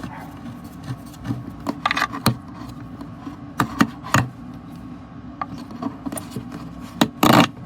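Handling noise: a run of scattered knocks and rubbing scrapes, with one louder scrape of about half a second near the end.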